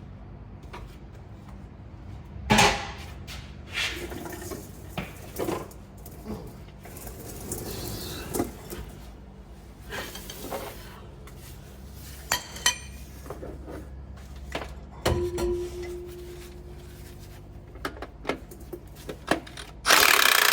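Hand tools and steel parts clanking and clinking against each other during heavy-truck repair work, with a loud metal knock about two and a half seconds in and a loud clatter near the end, over a steady low hum.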